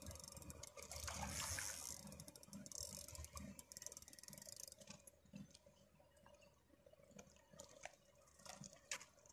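Fishing reel being wound in against a hooked fish: fast, even clicking for about the first five seconds, then only scattered ticks, with faint water splashing at the surface.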